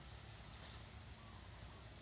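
Near silence: faint outdoor background hiss and low rumble, with one faint brief rustle about two-thirds of a second in.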